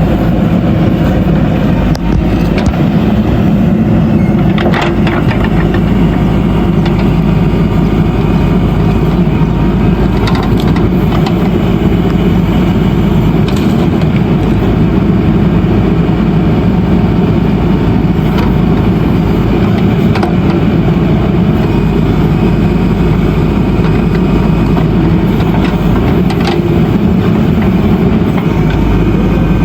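Backhoe loader's diesel engine running steadily under work, with a few sharp knocks scattered through.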